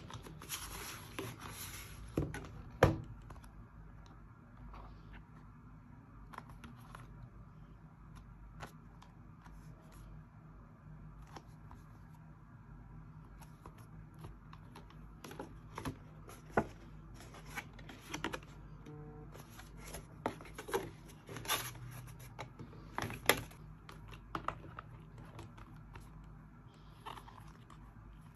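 Packaging and products being handled by hand: a scraping rustle in the first couple of seconds, then scattered sharp clicks and taps, the loudest about three seconds in and again near the twenty-three-second mark.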